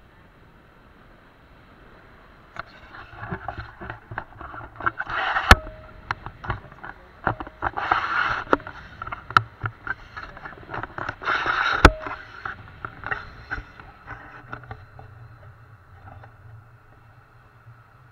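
Wind rushing over an action camera's microphone during a tandem paraglider flight, swelling and easing in gusts, with sharp clicks and knocks from the hand-held camera pole.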